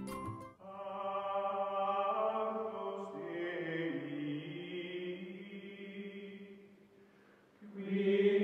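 Slow outro music of held, chant-like vocal chords that shift pitch now and then, fading out about seven seconds in before a new chord swells back near the end.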